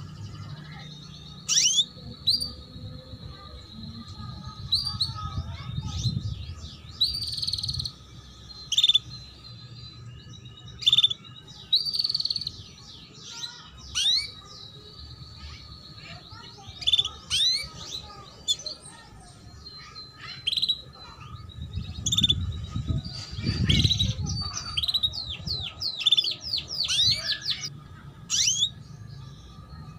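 Female canary in breeding condition calling 'cuit cuit': short, sharp chirps that drop in pitch, some single and some in quick runs. These are the lure calls used to bring young canaries into song and into breeding condition.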